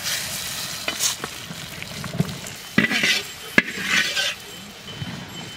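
Hot oil tempering of whole cumin, dried red chillies and bay leaves poured from a large metal wok into a pot of dal, sizzling with a steady hiss. A spoon scrapes the wok, with a few sharp metal clinks.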